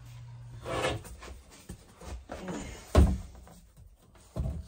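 A few knocks and thumps from a large thin wall board being handled and set against the wall, the loudest and deepest about three seconds in. A low steady hum stops about a second in.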